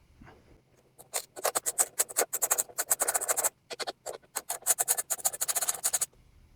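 Rapid dry clicking in two runs of a couple of seconds each, with a short break between, typical of a ratchet wrench being worked back and forth on a small engine.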